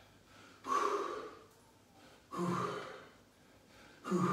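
A man's sharp breaths out, three in a row about every second and a half, each timed with the push of a barbell shoulder press.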